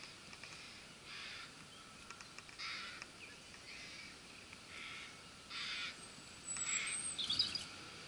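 Young rabbits cropping grass close to the microphone: short, irregular bursts of nibbling and rustling. A songbird chirps briefly near the end.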